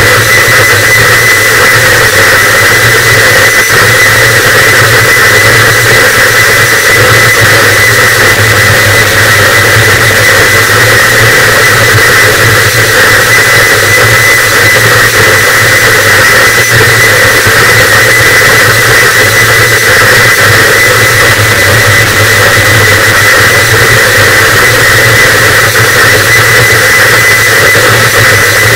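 Harsh noise wall: a loud, unchanging wall of distorted static, with a low rumble, a gritty middle band, a bright hiss and a thin steady high tone, all held without a break.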